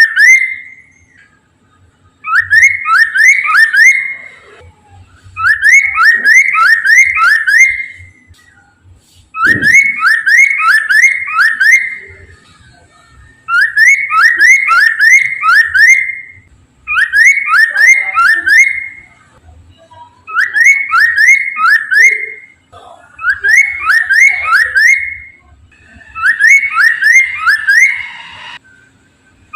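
Poksay mandarin, a laughingthrush, singing its lure song: loud whistled phrases of four or five quick rising notes, each phrase about two seconds long and repeated every three to four seconds.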